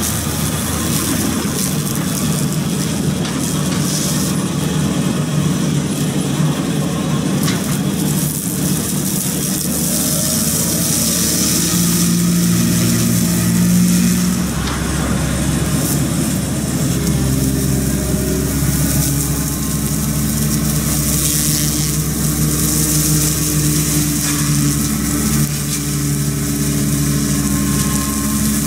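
Excavator engine running steadily under load, driving a hydraulic rotary cutter attachment as it mows grass and weeds, with a steady hiss over the engine. The engine note shifts and a deeper rumble comes in about halfway through.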